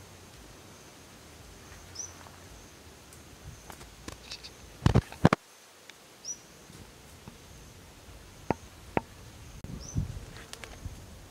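Rice-field ambience: a steady high insect drone with a few short bird chirps, broken by sharp knocks or clicks, the loudest two in quick succession about halfway through.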